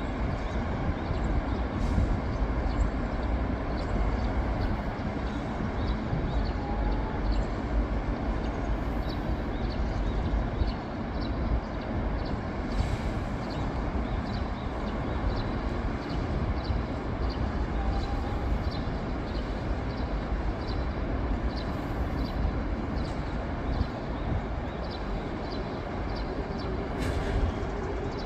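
Steady city road traffic: buses, cars and trucks rumbling along a wide multi-lane road. A faint high ticking repeats about three times every two seconds through most of it.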